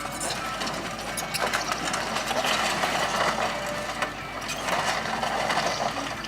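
Case excavator working at demolition: its diesel engine runs under load while boards and timbers of an old barn break and clatter, a busy crackling clatter that swells twice.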